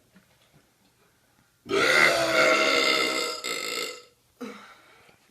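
A man lets out one long, loud burp lasting a little over two seconds, starting about a second and a half in, followed by a brief second sound about half a second after it ends.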